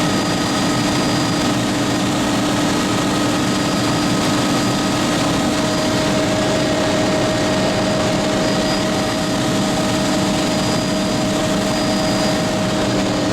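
Tour helicopter's engine and rotor running steadily, a constant drone with a held whine that doesn't change in pitch or level.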